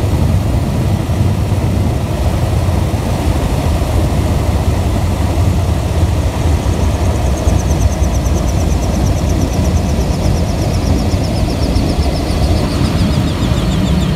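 De Havilland Otter float plane's engine and propeller running steadily, heard from inside the cabin as a loud, continuous low drone.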